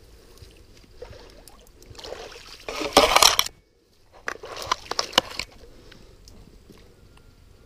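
Hands splashing and sloshing in shallow stream water while groping among grass and roots, in two noisy bursts: a loud one about three seconds in, cut off abruptly, and a crackly one about four to five seconds in.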